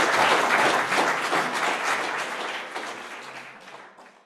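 Audience applauding, the clapping thinning out from about halfway through and dying away near the end.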